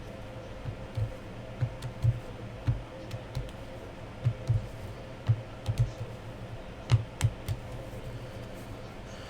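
Typing on a computer keyboard: irregular keystrokes in uneven clusters, with light clicks and dull thuds, over a steady faint hum.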